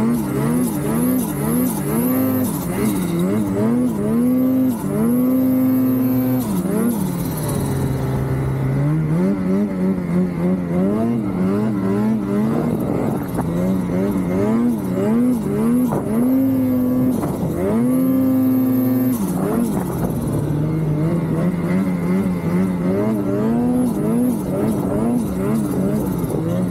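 Ski-Doo Summit Expert Turbo snowmobile's two-stroke turbo engine being ridden through deep powder. The revs rise and fall over and over as the throttle is worked, with a few longer held high revs and one stretch dropping to a low steady run.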